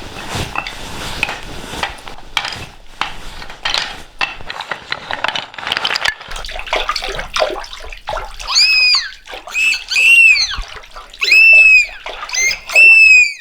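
Water splashing and sloshing with dripping clicks, made as a sound effect. About halfway through it gives way to a run of loud, high squeaky calls, each rising and then falling in pitch, about six of them.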